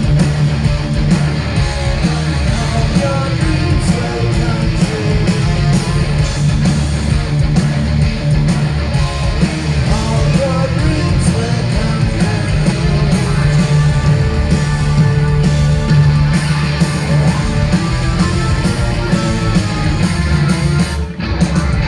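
A live rock band playing loud through the hall's PA: electric guitars, bass and drums with a heavy low end. The band drops out for a moment near the end.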